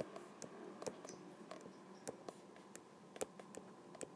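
Stylus tapping and clicking on an iPad's glass screen during handwriting: irregular, light, sharp clicks, a dozen or so, one of the louder ones just after three seconds in.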